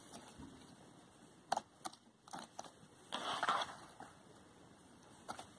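Slime mixed with crumbled floral foam being squeezed and stretched by hand: a few scattered crunches and pops, with a longer crackling squish about three seconds in.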